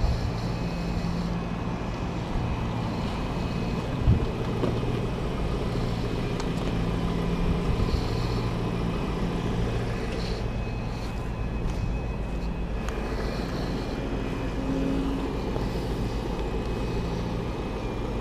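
Diesel engine idling steadily, a low even hum, with a single knock about four seconds in.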